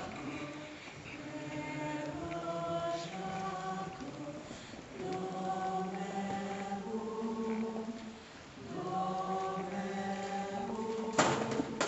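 A group of voices singing slow held notes, like a choir chant, in phrases with short breaks. A single sharp hit sounds near the end.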